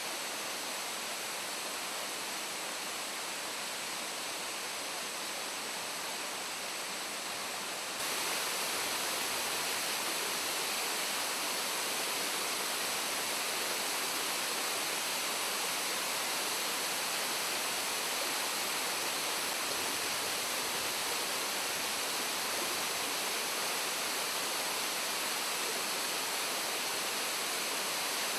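Chihaya Falls waterfall: a steady rush of falling water, stepping up a little louder about eight seconds in.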